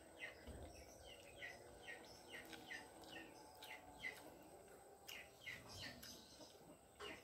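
Faint bird chirping: short, falling chirps repeated about twice a second over near-quiet background, with a few soft clicks.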